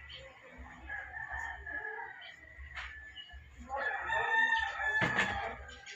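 A rooster crowing, loudest about four seconds in, with a sharp knock about five seconds in.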